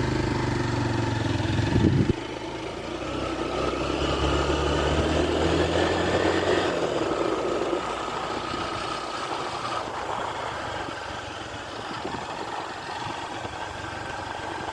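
Small motorcycle engine running while riding over a rough dirt road. About two seconds in there is a brief loud burst and the engine note drops, then builds again before easing off after about eight seconds.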